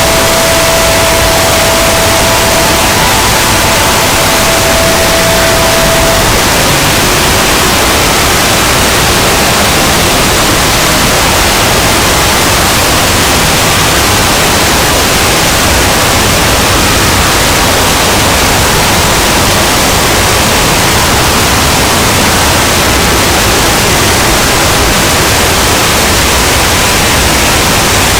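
Very loud, steady static-like noise from an overdriven horror 'punishment' sound effect, filling every pitch at once. A steady tone sounds through it and stops about six seconds in.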